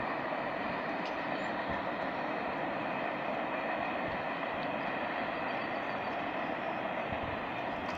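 Freight train wagons running past on the rails: a steady, even noise of wheels on track with no break.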